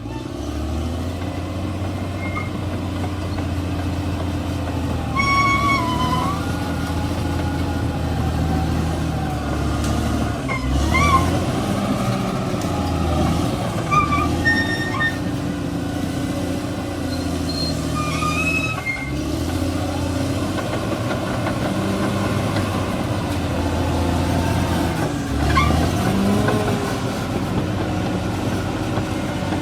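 Bulldozer's diesel engine running under changing load, its pitch stepping up and down every few seconds, with short high squeaks now and then.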